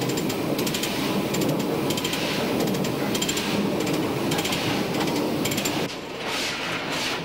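Steam locomotive heard from inside its cab while moving: a steady rumble with fast metallic rattling and clicking. About six seconds in it gives way to evenly spaced hissing chuffs, a little more than one a second.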